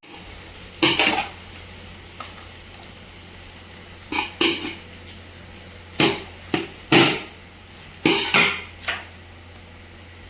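Metal cooking pots and utensils clattering: several separate knocks and scrapes, in groups about every two seconds, over a steady low hum.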